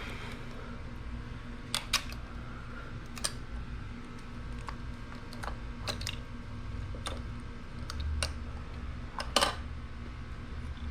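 Scattered light metallic clicks and clinks, about ten in all with the sharpest about two seconds in and near the end: engine parts being handled as the cylinder is worked off the piston of a two-stroke dirt bike engine. A low steady hum underneath.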